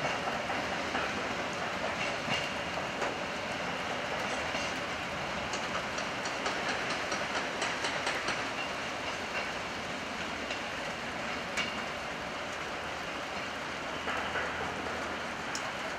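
Railway wheels clicking over rail joints and points as an unpowered EF65 electric locomotive is hauled slowly away, over a steady rushing background. A quick run of clicks comes in the middle, with a few single clicks later.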